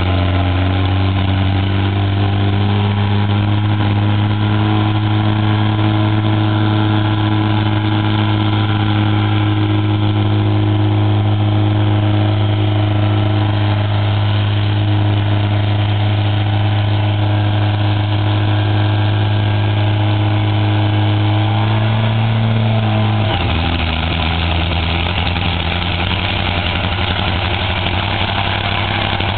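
Loud drag-racing motorcycle engine running at a steady fast idle just after start-up. About 23 seconds in, the idle drops to a lower, steady speed.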